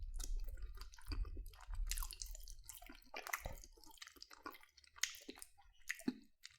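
A person chewing a mouthful of mac and cheese, with irregular mouth clicks and smacks.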